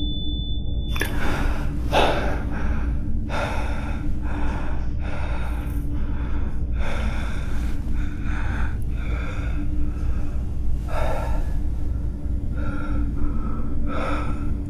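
A man who has been shot and is bleeding, breathing heavily in ragged gasps, about one breath a second, over a low steady drone.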